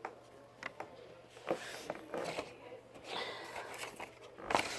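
Small magnetic balls clicking together as they are handled and snapped into place: a scatter of sharp single clicks with soft rustling between them, the loudest click near the end.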